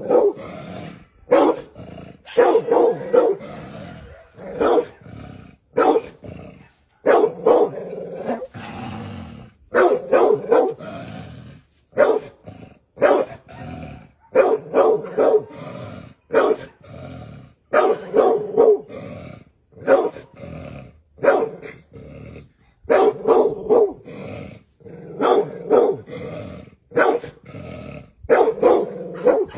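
A dog barking again and again, in quick runs of two to four barks every second or two. It is alarm barking at a snake that it is holding at bay.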